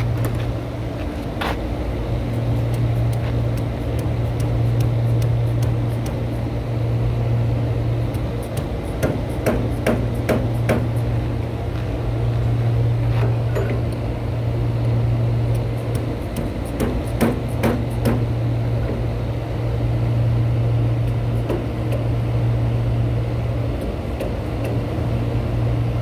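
Light metal taps and clicks in a few short clusters as a shaft key is tapped into the keyway of a blower pulley, over a steady low machine hum.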